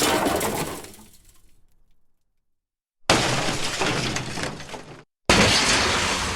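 Crash sound effects with breaking, shattering glass: the first fades away over about two seconds, then after a brief silence a second crash hits about three seconds in, and a third about five seconds in.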